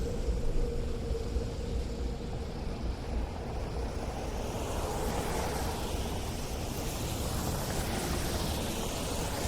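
City street traffic on snowy streets: a steady low rumble of engines and tyres, swelling a little in the middle as vehicles pass.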